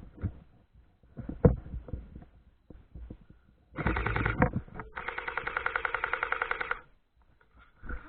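Airsoft electric gun firing on full auto: a short burst about four seconds in, then a rapid, evenly pulsing buzz of about two seconds. Scattered clicks and rustling come before the bursts.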